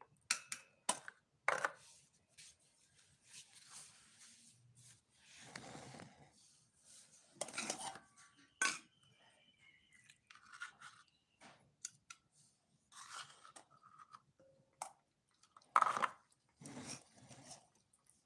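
A metal spoon clinking and scraping against stainless steel bowls as wet cat food is dished out, in irregular sharp clinks. Cats eating from the bowls, lapping and chewing the wet food.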